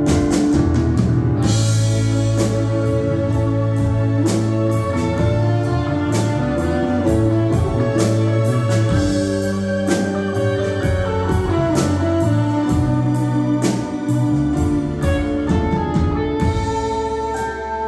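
Live rock band playing an instrumental passage of a ballad with no vocals: electric guitar, bass, drum kit and keyboards, the drums keeping a steady beat.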